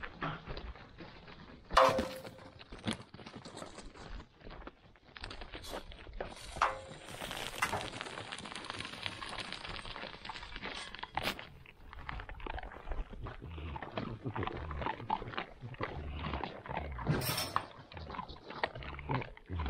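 Dry feed poured from a metal pot onto gravel, with two ringing metallic clanks near the start and a hiss of pouring about halfway through. After that a group of javelinas crunches and chews the feed off the ground, with many small crunching clicks.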